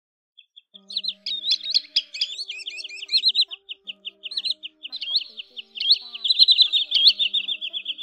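A flock of green sandpipers calling: many overlapping high, clear whistled notes, some rising and hooked, others in quick runs of short repeated notes at several a second. The calling starts about a second in and is densest near the end.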